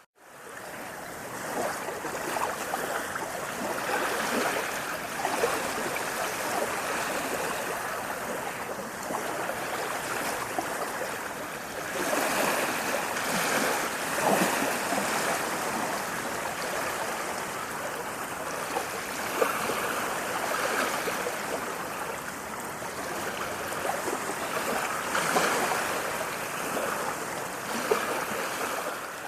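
Running water flowing steadily: a continuous, even rush with fine splashing texture, coming in out of a momentary gap at the very start.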